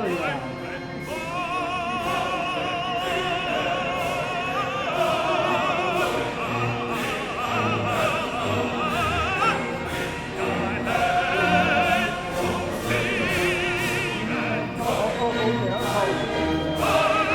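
Classical music: an operatic voice singing with wide vibrato over an orchestral accompaniment.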